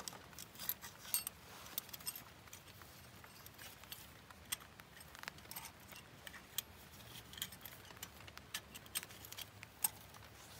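Faint, irregular small metallic clicks and clinks of snap ring pliers, a steel snap ring and a washer being worked blind into the front axle knuckle.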